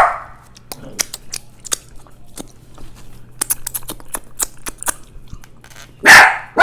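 Close-up eating sounds: chewing, with many small sharp mouth clicks and smacks. Near the end a dog barks loudly.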